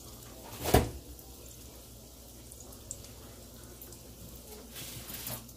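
Biscuit-dough-wrapped Oreos deep frying in oil: a steady sizzle with small crackles from the bubbling oil. A single sharp thump comes about a second in.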